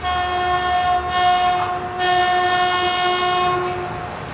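An approaching Caltrain passenger train sounding its multi-note air horn in long blasts, dipping briefly about a second in and fading near the end, over a low rumble.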